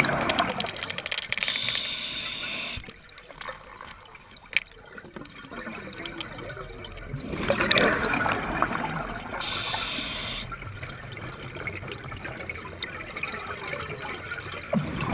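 Scuba diver breathing through a regulator underwater. Exhaled bubbles burble loudly three times, about seven seconds apart. Between them come short hisses of the regulator on the in-breath.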